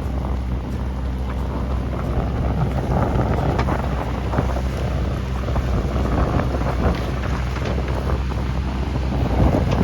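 Mini excavator's diesel engine running steadily under work, with short scrapes and knocks at times as crushed stone is spread, and wind noise on the microphone.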